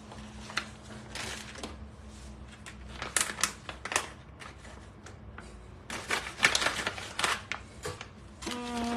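Packaging crinkling and rustling as a stand-up powder pouch and a plastic bag are handled: clusters of sharp crackles, heaviest about three seconds in and again from about six to seven and a half seconds.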